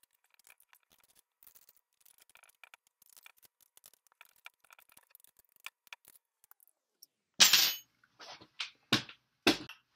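Faint small clicks and scratches of an Allen key turning the set screws in an aluminium quad-rail handguard on an AR-15. Near the end come four loud knocks and scrapes as the rifle and rail are handled.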